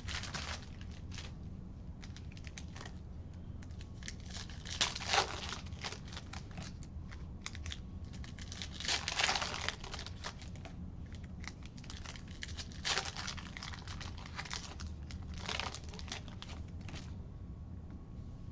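Foil baseball-card pack wrappers crinkling and tearing open by hand, in several short irregular bursts, the loudest about nine seconds in, with cards handled in between. A steady low hum runs underneath.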